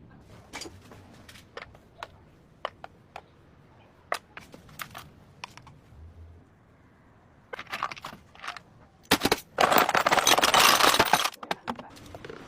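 Scattered clicks and knocks of tools and metal parts being handled, then a loud rasping burst lasting about two seconds, and a few more clicks.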